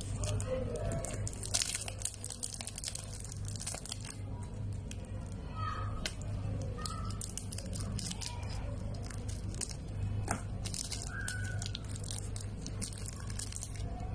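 Thin plastic wrapper on a stick of modelling clay crinkling and tearing as it is slit with a pointed tool and peeled off: many small crackles and rustles.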